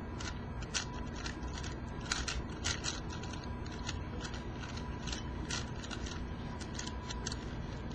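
ShengShou 4x4 speed cube turned by hand: irregular plastic clicks and snaps as its layers are twisted, a few per second. The new, unlubricated cube turns blocky, and its owner thinks it could use lube for its springing noises.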